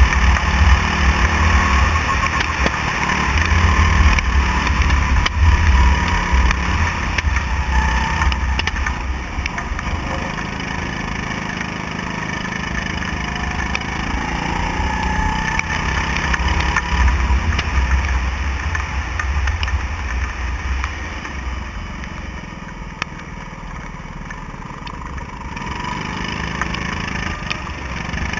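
Go-kart engine running at track speed, heard from on board the kart over a heavy low rumble, its pitch rising and falling with the throttle through the corners. It eases off a little past three-quarters of the way through, then picks up again.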